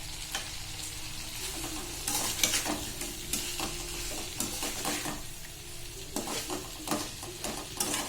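Fried chicken pieces sizzling in a kadai with sauces while a spatula stirs and scrapes them against the pan, with irregular clicks over a steady hiss.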